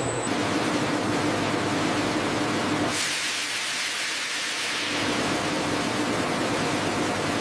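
Steady factory machinery noise: a broad hiss with a low hum under it. For about two seconds near the middle the hum drops away and the hiss turns brighter, then the hum comes back.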